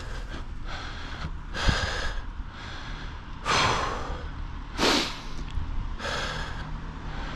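A man breathing hard after a long uphill climb on a bicycle, a heavy breath about every second and a half, over a steady low rumble.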